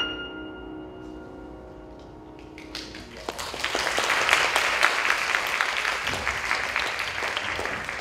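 A grand piano's last notes ring out and fade. From about three seconds in, an audience applauds.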